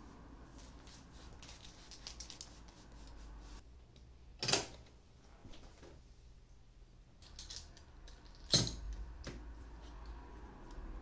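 Small bar clamps being tightened onto a plastic table saw fence extension: two sharp clicks about four seconds apart, the second louder, with light handling ticks and rustles before them.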